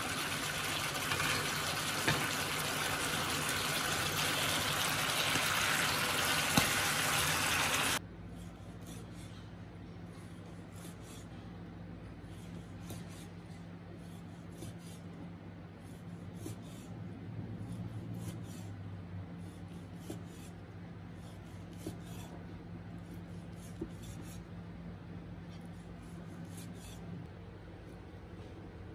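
Pork belly braising sauce sizzling and bubbling in a griddle pan, a steady hiss that cuts off suddenly about eight seconds in. After that there is quieter room tone with scattered light taps of a cleaver slicing pork on a wooden chopping board.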